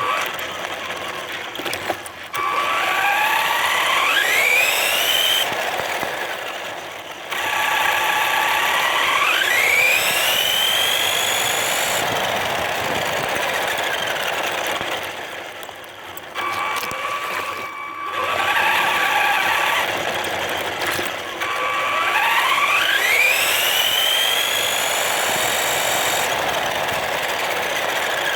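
Electric drive motor and gearbox of a LUCTAN S912 RC monster truck whining. The whine rises in pitch several times as the truck speeds up, with rougher, lower stretches in between.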